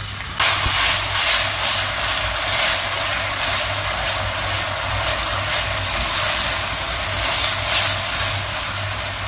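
A mixture of soy sauce, chilli sauce, ketchup and vinegar poured into hot oil and vegetables in a stainless steel wok. It starts sizzling loudly about half a second in and keeps sizzling steadily as a silicone spatula stirs it.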